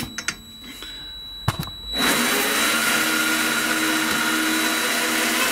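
A few clicks of the machine controls, then about two seconds in the CREWORKS 600W 8x14 mini lathe is switched on and runs steadily, its motor and gears making a steady whine.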